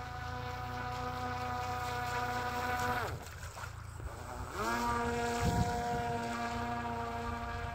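Homemade RC fan boat's motor and air propeller whining steadily. About three seconds in the pitch falls away as the throttle is cut, and about a second and a half later it rises again and holds steady.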